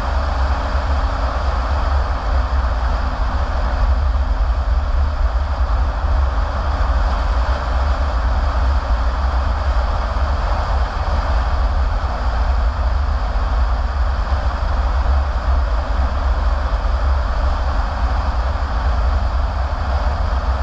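Car driving at road speed, heard from inside the cabin: steady tyre and road noise over a low, even rumble.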